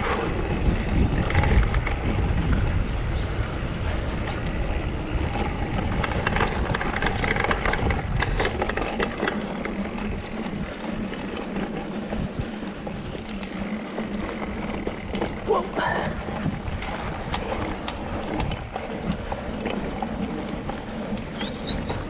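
Mountain bike rolling along a dirt singletrack: tyres crunching over dirt and the bike rattling over bumps, with wind rumbling on the microphone, heaviest over the first nine seconds or so.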